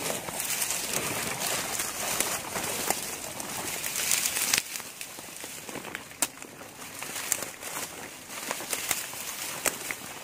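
Dry grass rustling and crackling and a plastic protective suit crinkling as hands push into a grass clump, with scattered sharp snaps of stems.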